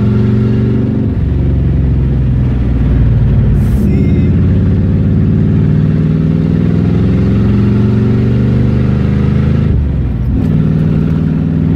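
The 400 cubic inch V8 of a 1967 Pontiac Firebird running with its exhaust cutouts open, heard from inside the cabin while the car is driven through the gears of its five-speed Tremec manual. The engine note drops about a second in at a gear change, then climbs steadily under acceleration for several seconds, breaks off briefly near ten seconds in at the next shift, and picks up again lower.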